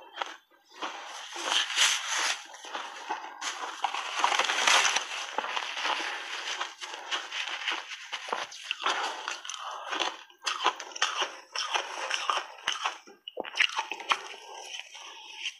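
Big bites of crunchy purple shaved ice coated in matcha powder being crunched and chewed close to a clip-on microphone: a dense run of crisp crackles and crunches, with a few brief pauses.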